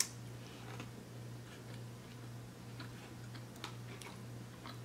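Faint, irregular mouth clicks and soft chewing of a bite of donut, over a steady low hum.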